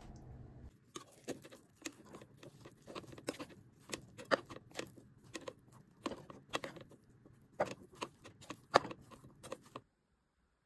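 Rice paddle stirring cooked mixed rice with vegetables in a rice cooker's inner pot: irregular soft clicks, taps and scrapes of the paddle against the pot, several a second. They stop abruptly near the end.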